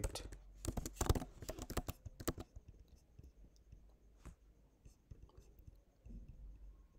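Computer keyboard typing, quick clicks of keystrokes for the first two seconds or so, then only a few scattered clicks.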